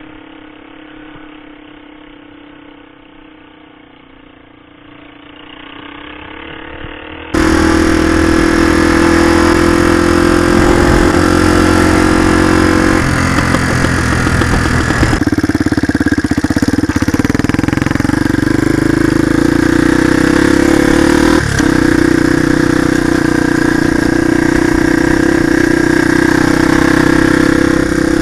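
Small motorcycle engine running at a steady speed, muffled and quieter at first. About seven seconds in, it cuts suddenly to a much louder, fuller sound of the engine under way, its pitch stepping a few times.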